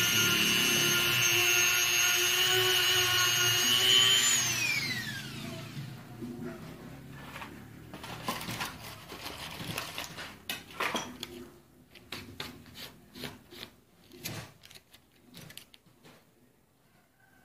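Handheld rotary tool with an abrasive bit buffing the rubber of a motorcycle inner tube around a puncture, roughening it for the glue: a steady high whine. About four seconds in it is switched off and its pitch falls as it spins down, followed by light clicks and rustling as the tube and a patch are handled.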